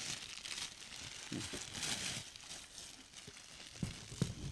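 Plastic bags crinkling and rustling as a gift is unwrapped, with two short bumps near the end.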